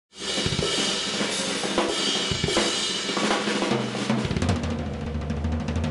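Drum kit playing as intro music: cymbals ringing over kick and snare hits, giving way after about four seconds to evenly spaced strikes over a low steady note.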